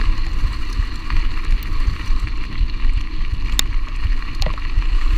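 Wind buffeting the microphone of a camera on a moving mountain bike, over the rumble of tyres rolling on a dirt road. Two sharp clicks come a little after halfway.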